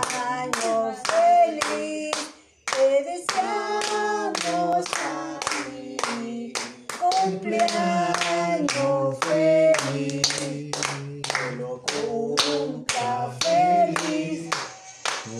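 People singing a birthday song in Spanish while clapping along in time, about two claps a second, with a brief pause about two seconds in.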